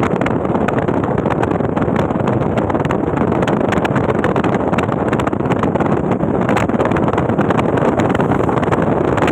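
Steady rush of a vehicle driving at speed, with tyre, engine and road noise mixed with wind buffeting and crackling on the microphone.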